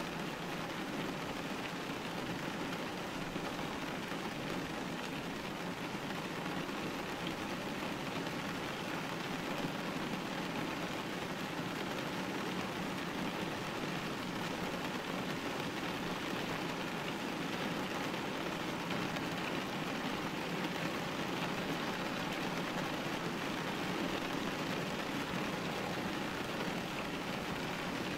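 Steady rain falling and pattering on a window pane, an even hiss with no single drops standing out.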